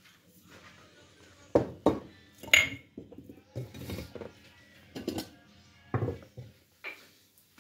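Tableware being set down on a cloth-covered table: a plate, tea glasses and a metal wire trivet give a series of about seven knocks and clinks. The loudest, about two and a half seconds in, rings briefly.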